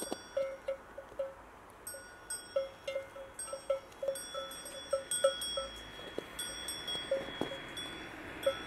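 Livestock bells clinking irregularly, two or three light strikes a second, as the animals wearing them move about.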